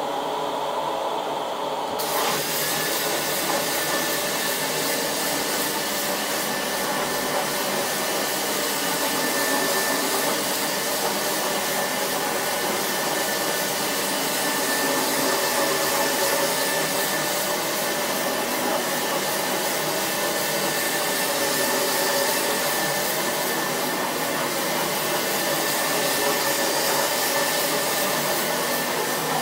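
Carpet extraction machine's vacuum running steadily during Rotovac rotary extraction cleaning. About two seconds in, the hiss grows fuller and a steady high whine sets in.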